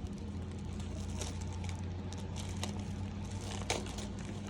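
Packaging for a smartwatch being handled and opened: scattered small clicks and crinkles, the sharpest about a second in, and again near the middle and about three-quarters through, over a steady low hum.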